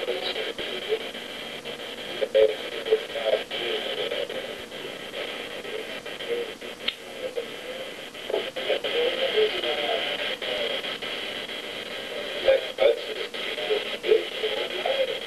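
Muffled, indistinct talking over a steady hiss, too unclear to make out words.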